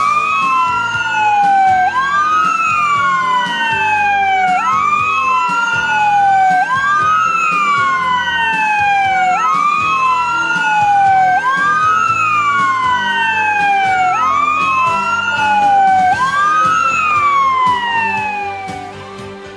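Fire truck sirens wailing, two tones overlapping out of step, each rising and falling about every two and a half seconds. They fade out near the end.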